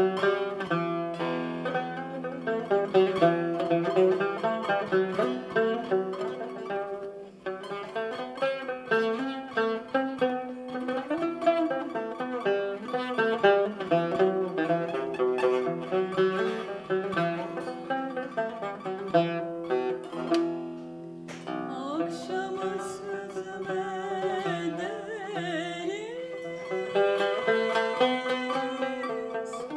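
Turkish tanbur, a long-necked plucked lute, playing a solo melodic line of quick plucked notes. About two-thirds of the way in, a woman's voice comes in singing over it.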